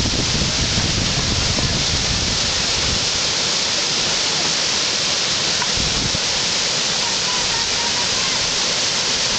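Whitewater of a river rapid rushing steadily, a loud, even hiss of breaking water. A low rumble under it falls away about three seconds in.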